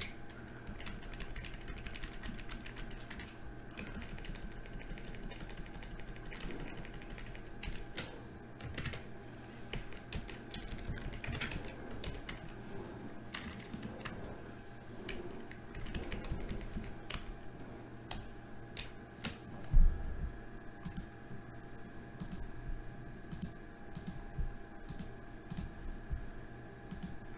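Computer keyboard keys and mouse buttons clicking irregularly over a steady electrical hum, with one louder dull thump about twenty seconds in.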